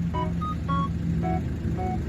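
Background music, a melody of short, bright keyboard-like notes, over the steady low drone of a running vehicle engine.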